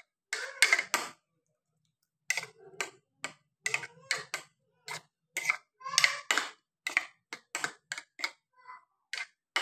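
Metal spoon clicking and scraping against a bowl while beating a raw egg mixture, in quick irregular strokes with a pause of about a second near the start.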